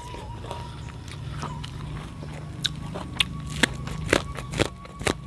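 Biting raw purple corn kernels off the cob, close up: crisp crunches with chewing. A run of about six sharp crunches, roughly two a second, comes in the second half.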